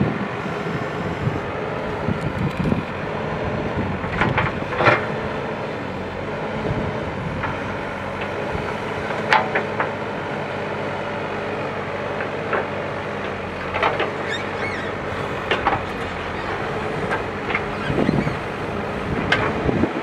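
ACE backhoe loader's diesel engine running steadily as the backhoe arm digs soil and stones, with sharp clanks and knocks every few seconds from the bucket and arm.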